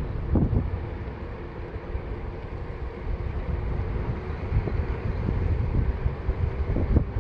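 Wind buffeting the microphone of a moving bicycle, a fluttering low rumble mixed with the rolling noise of tyres on asphalt. Under it runs a faint steady hum.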